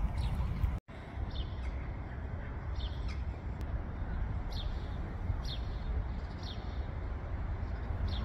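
A bird calling in short, high, falling chirps about once a second over a steady low rumble. The sound cuts out briefly about a second in.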